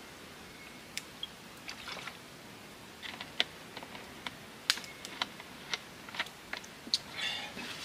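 Plastic drink bottle crackling and clicking as it is gripped and handled, a string of light, irregularly spaced clicks.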